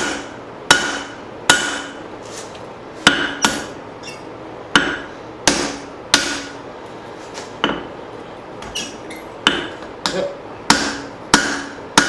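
Hand hammer striking hot leaf-spring steel on an anvil while forging a hatchet head. About a dozen blows come at an uneven pace, roughly one every half second to a second, with a pause of about two seconds midway. Each blow rings briefly.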